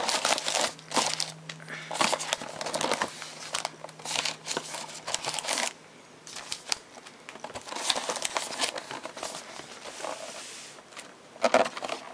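Crinkling and rustling of crimp-sealed trading-card packs being pulled out of a cardboard hobby box and stacked by hand, in irregular handfuls with a short pause about halfway.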